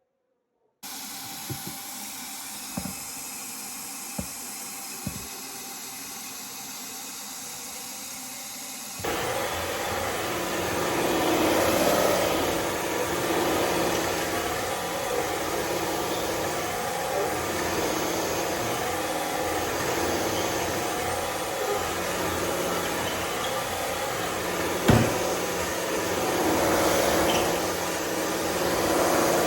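Cordless wet-dry floor vacuum running steadily with a motor hum. It steps up abruptly to a louder run about nine seconds in. There are a few light clicks in the quieter stretch before that, and a single knock near the end.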